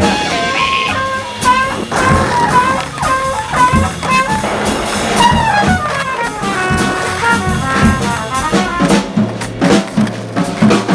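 Live jazz: a horn playing a quick melodic line over a drum kit. About nine seconds in the horn stops, leaving the drums and a low held note.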